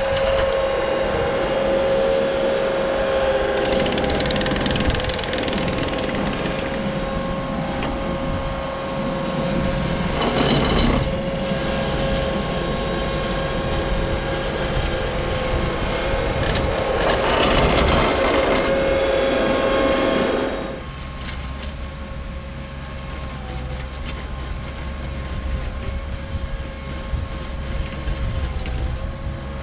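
ASV RT40 compact track loader's diesel engine running under load with a steady whine, while its hydraulic Harley rake churns through dry soil. The sound drops suddenly about two-thirds of the way through as the machine moves away.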